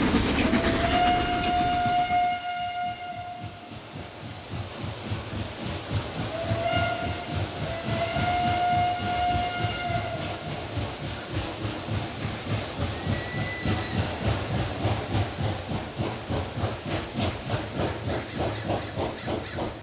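Steam locomotive whistle blowing a long single-tone blast, then a second one that slides up into the note, over the train's rhythmic chuffing and rolling, which carries on steadily after the whistles stop.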